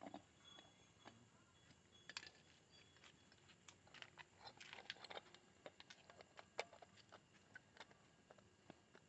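Faint, scattered clicks and taps of a motorcycle headlight bulb and its holder being handled and fitted back, busiest in the middle.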